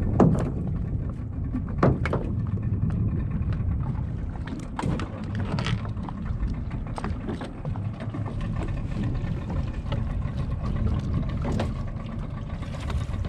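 Small fishing boat under way on open water: a steady low rumble with a few sharp knocks, the loudest right at the start and about two seconds in.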